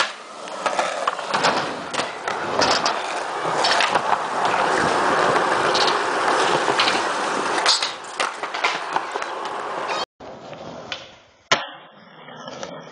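Skateboard wheels rolling steadily over a concrete skatepark, with scattered clacks of the board. After a cut about ten seconds in comes a single sharp smack of the board on the ground, then quieter rolling.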